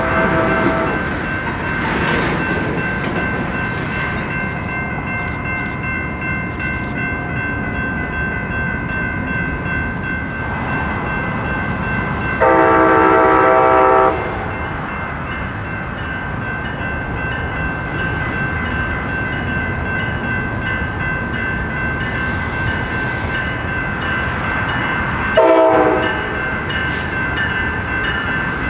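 A train running by with a steady rumble, while a locomotive air horn sounds three times: a short blast at the start, a longer, louder blast of about a second and a half about halfway through, and a short blast near the end.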